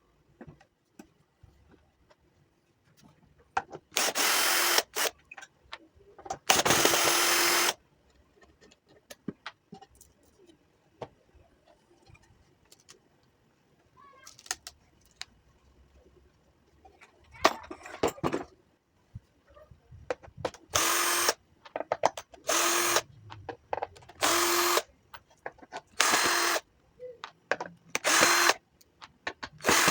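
Handheld electric power tool with a drill-like motor, run in short bursts of about a second, roughly nine times with pauses between.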